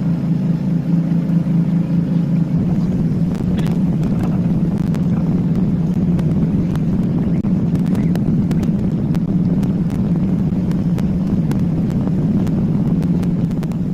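Small boat's engine running steadily, its tone shifting slightly about two and a half seconds in, with scattered clicks over it.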